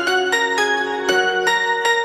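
Background music: a keyboard or electric-piano melody of quick, evenly struck notes over sustained bass notes.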